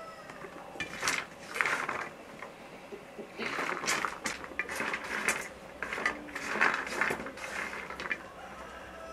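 Fingers sorting through shelled walnut pieces on a metal tray: irregular rustling and light clattering of the nut pieces scraping against the tray.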